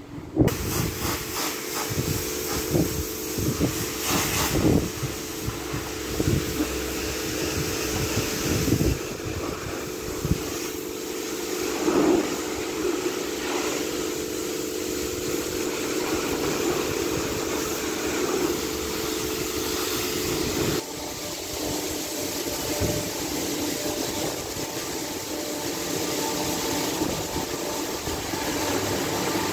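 Car wash pre-wash: a high-pressure washer running, with the continuous hiss of spray on a car over a steady pump hum that stops about two-thirds of the way through. Occasional knocks.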